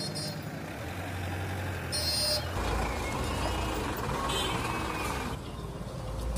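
Street traffic: engines of passing vehicles running, with a heavier low rumble coming in about two and a half seconds in and a short hiss just before it.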